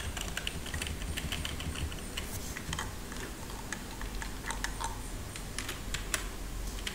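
Computer keyboard keys and mouse buttons clicking irregularly, a few sharp clicks a second with gaps between them.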